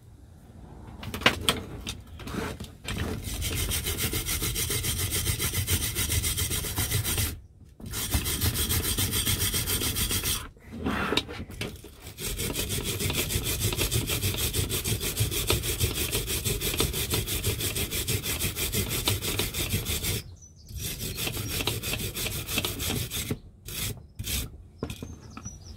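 Hand wire brush scrubbed rapidly back and forth over the painted steel casing and mechanism of a vintage Salter milk scale, a harsh scraping rasp. It comes in several long runs broken by short pauses, with a few clicks of handling near the start and end.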